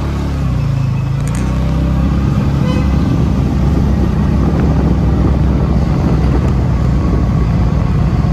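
Motorcycle engine running as the bike picks up speed at low road speed, with a steady rush of noise over it.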